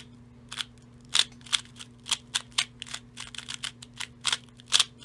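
A Rubik's cube being scrambled by hand, its layers turned one after another in a quick, uneven run of sharp plastic clicks.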